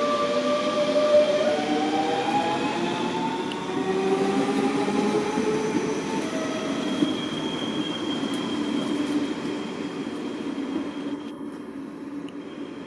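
DB class 425 electric multiple unit's traction drive whining with several tones that rise together in pitch as the train accelerates away. The sound fades over the last few seconds.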